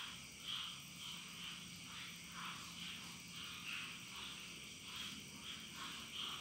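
Faint chorus of frogs calling in the background, short calls repeating about twice a second.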